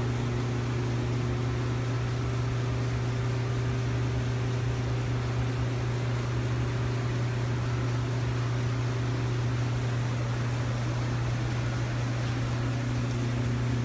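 Steady low hum with an even hiss over it, unchanging throughout, from powered-up shop machinery.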